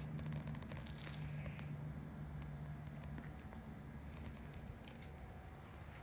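Quiet footsteps on dry pine needles and dirt, a scatter of small crackles and rustles, over a faint steady low hum that fades out about halfway through.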